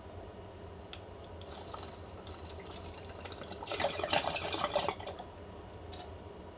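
Water bubbling in a glass beaker bong as smoke is pulled through its diffuser percolator: soft bubbling at first, then a loud, rapid burble for about a second in the middle.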